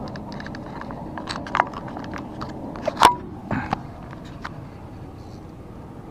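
Scattered clicks and knocks of objects being handled on a boat, the loudest a sharp knock with a short ring about three seconds in, then only the steady background.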